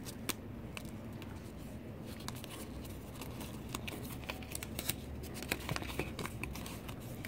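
A small folded paper slip being unfolded and flattened by hand: soft paper crinkling with many small crackles scattered throughout.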